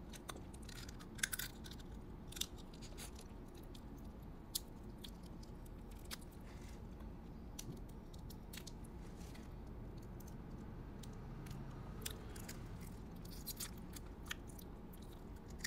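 Eating steamed ba khía (small mangrove crabs) by hand: soft chewing with scattered small cracks and clicks of thin crab shell being pulled apart, more of them near the end, over a low steady hum.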